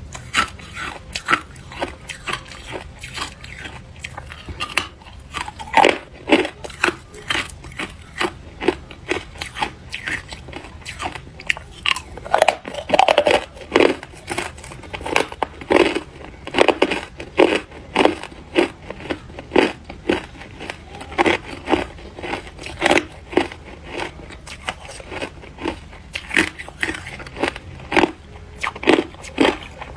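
A person biting and chewing carbonated ice close to the microphone: a run of crisp crunches, a few each second, with brief pauses between bites.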